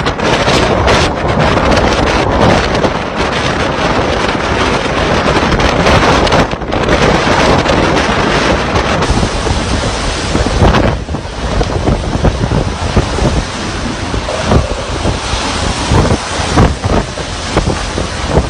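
Strong typhoon wind blowing in loud gusts and buffeting the microphone.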